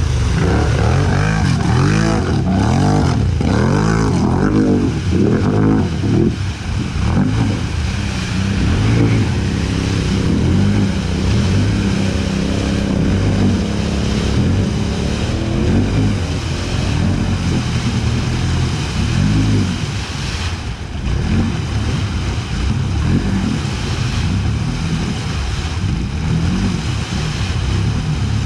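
ATV engine revving up and down again and again under heavy load as the quad churns through deep mud, its tyres spraying mud and water.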